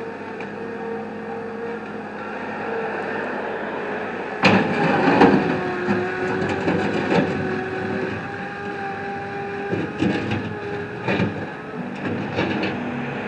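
Heavy machine engine running steadily, with a sudden loud clatter of metal clanks and rattles starting about four and a half seconds in and knocks continuing afterwards.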